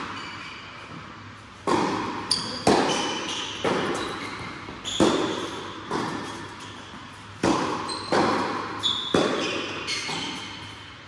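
Tennis rally on a hard court: the sharp pops of the ball off the strings of a Wilson Pro Staff 97 v13 racquet and its bounces, each echoing in a large indoor hall, with short squeaks of sneakers between the shots.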